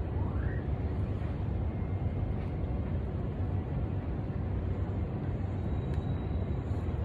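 Steady low rumble of city background noise, with one short rising chirp just after the start.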